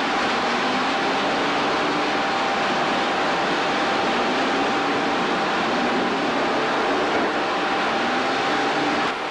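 Small log-pond boom boat's engine running, its pitch rising and falling as it maneuvers, under a loud steady rushing hiss and a thin steady whine.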